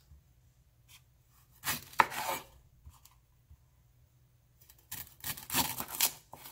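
Chef's knife cutting through ripe burro bananas on a wooden cutting board, the blade knocking on the board. There are a few separate cuts, the sharpest about two seconds in, then a run of slicing strokes near the end.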